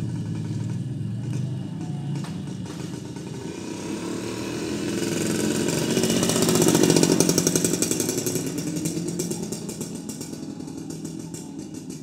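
A motorcycle passes along the street, its engine growing louder to a peak about halfway through and then fading away.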